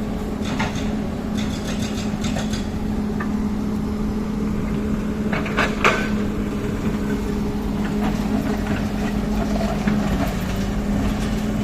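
Heavy machine engine running steadily, with scattered metallic clanks and clatter; the loudest knock comes about six seconds in.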